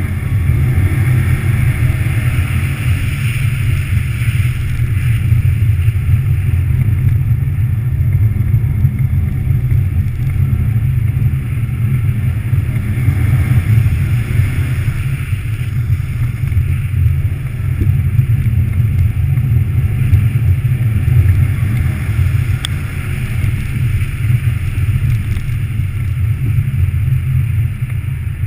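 2014 Subaru WRX STI's turbocharged flat-four engine running hard while the car is driven around an ice track on studded tyres, a loud, steady low rumble that swells and dips with the throttle, with tyre and road noise above it.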